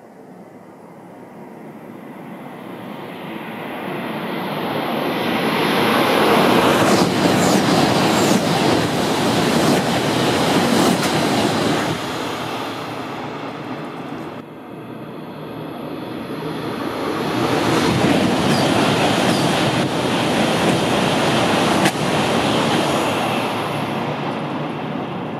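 Shinkansen bullet trains passing at high speed, the second an E5 series: a wide rushing noise swells to a peak and fades, then, after an abrupt break about halfway through, a second pass swells, holds at its loudest for a few seconds and fades.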